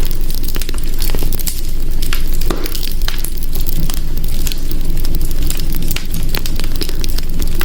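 Fireplace fire crackling, with many sharp, irregular pops over a steady low rumble.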